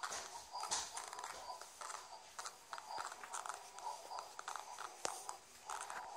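Soundtrack of an edited cartoon logo video played through small laptop speakers: thin and tinny, with rapid clicks and clattering and a faint steady tone underneath.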